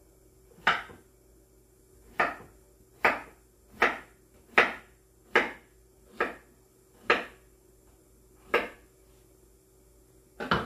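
Knife chopping through Mexican squash (calabacita) onto a cutting board: about ten single chops at roughly one a second, the last near the end.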